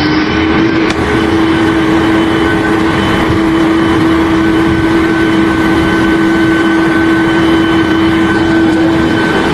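A loud machine running steadily, a constant whine over a dense rumbling noise.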